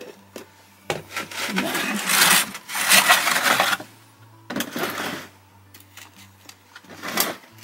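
A metal soil blocker and a plastic seed tray being handled in damp coco coir and perlite potting mix, giving scraping, rustling and light rattling. The longest and loudest stretch runs from about a second in to nearly four seconds, with shorter bursts around five seconds and near the end.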